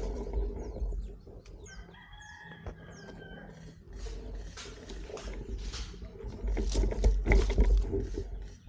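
A rooster crowing once, about two seconds in, a single call a little over a second long. Low rumbling and rustling on the microphone sit around it and are loudest near the end.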